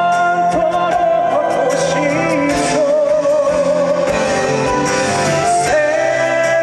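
Live trot song: a solo singer over a backing track, holding a long note with vibrato in the middle.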